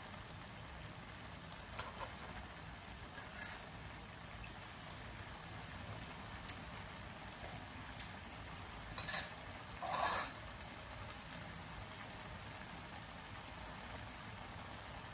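Stir-fried pork and greens simmering in their sauce in a wok: a steady, soft bubbling hiss. A few short sharp clicks cut through it, the loudest two about nine and ten seconds in.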